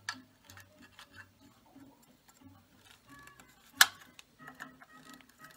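Pliers gripping and turning a nut on a vintage lamp's metal base plate, giving scattered small metallic clicks and one sharp, loud click about two-thirds of the way through. Soft background music plays underneath.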